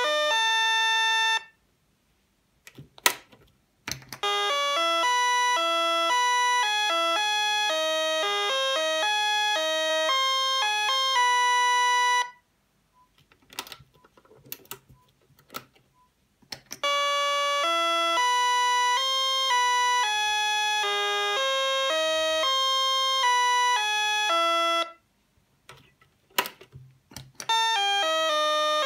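Sonata-1 electronic door chime playing melodies of electronic tones through its speaker, note stepping to note, in three runs of about eight seconds each. Between the runs there are pauses with a few sharp clicks as its button is pressed again.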